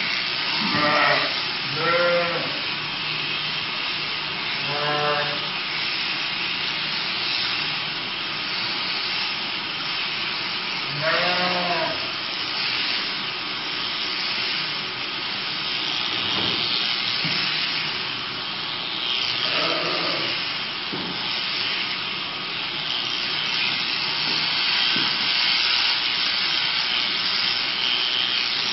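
Electric sheep shears running with a steady high buzzing hiss as they cut through fleece, while the sheep bleats about five times, mostly in the first half.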